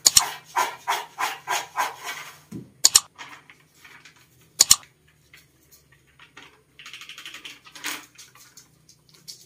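Popcorn tossed and shaken in a stainless steel pot, a rhythmic rustling swish about three times a second that stops after about two seconds. Then a couple of sharp knocks and the rustle of a plastic seasoning packet.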